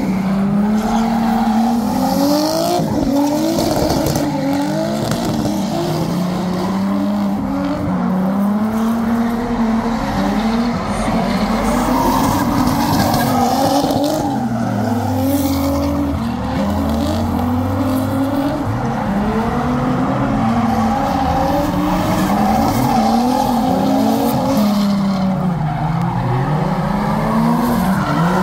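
Drift car engine revving hard, its revs rising and falling about once a second as the throttle is worked through a slide, with the rear tyres squealing and spinning.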